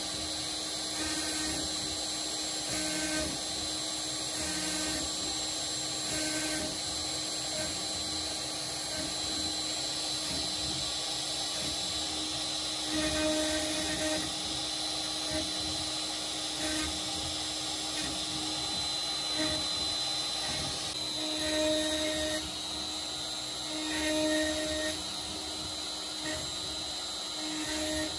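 Shapeoko XXL CNC router's spindle running with a steady high whine as a V-bit carves letters into a wooden board, with brief louder surges every second or two as the cut changes, more often in the second half.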